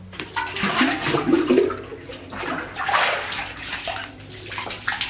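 Water sloshing and splashing in a brick-lined well shaft, rising and falling in several irregular surges.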